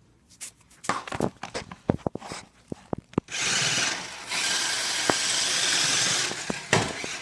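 Small electric motor of a toy RC car whirring at full speed, its tape-wrapped tires spinning without grip. Scattered clicks and knocks come first, then the steady high whir starts about three seconds in and runs for about three seconds before cutting off.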